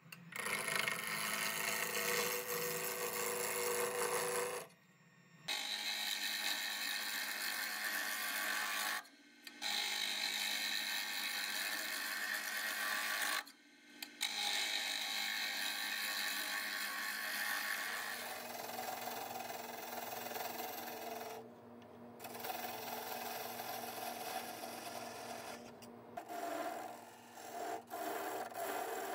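A turning tool cutting a spinning wood blank on a wood lathe, roughing the square blank round, with a continuous scraping, shaving noise. It breaks off abruptly about four times, and from around two-thirds of the way through a lower motor hum runs under it.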